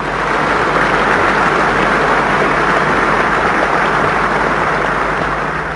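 Large audience applauding: a steady wash of clapping that swells up at the start and dies down toward the end.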